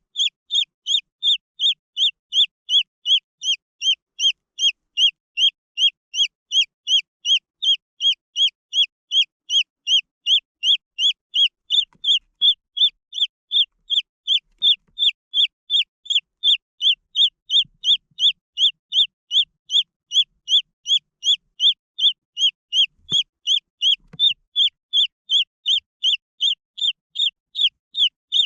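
Green junglefowl chick peeping: a steady, evenly spaced series of short, high, falling peeps, about two a second.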